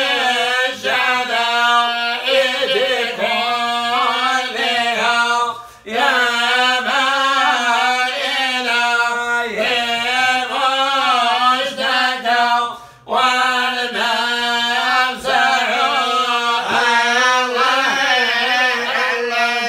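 A man chanting Quran recitation in a melodic, drawn-out style, in long phrases broken by breaths about six and thirteen seconds in.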